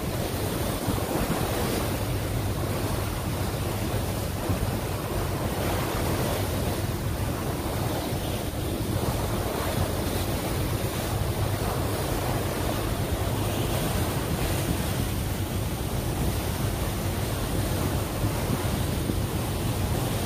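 Wind buffeting the microphone and water rushing past a moving boat, over a low steady hum.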